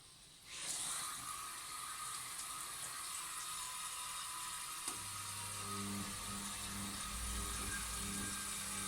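Gorenje washing machine taking in water: the inlet rushes on about half a second in, a steady flow into the drum. About halfway through, a low machine hum from the washer's motor joins the running water.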